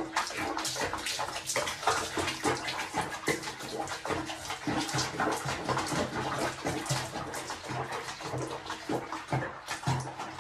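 Water splashing and sloshing in a basin of bathwater with a cat sitting in it, a dense run of small irregular splashes.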